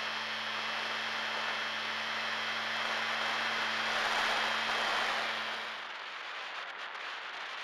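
Airflow rushing past the onboard camera of an FPV plane in flight: a steady windy hiss with a low steady hum under it. The hum cuts off about six seconds in, and the hiss drops a little.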